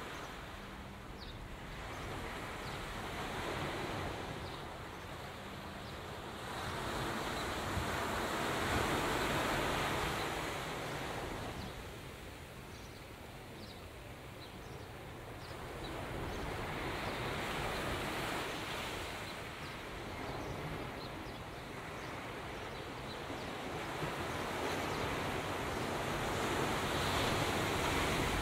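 Rushing wind and water noise that swells and eases in slow surges every several seconds, over a faint low steady hum.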